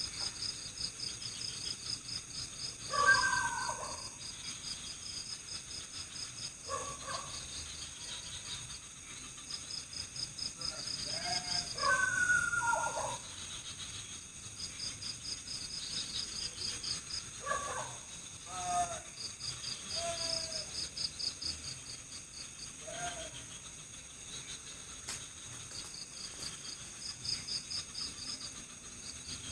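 Night forest chorus: crickets trill in repeated pulsed bursts over a steady high insect drone. Every few seconds another animal gives a short call that slides in pitch.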